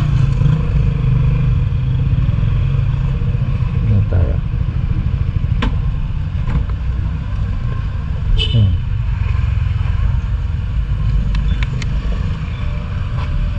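Yamaha XMAX motor scooter engine running at low speed as the scooter pulls in and parks. A steady low rumble, with a few sharp clicks and knocks along the way.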